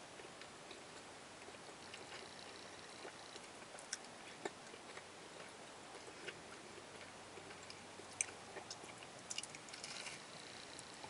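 A person chewing a mouthful of dry biscuit with no drink: faint, irregular wet mouth clicks and smacks, a few sharper ones about four seconds in and a cluster near the end.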